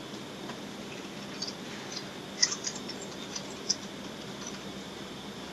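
Room tone, a steady hiss with a faint low hum, broken by a handful of short, high-pitched clicks or squeaks in the middle; the loudest comes about two and a half seconds in.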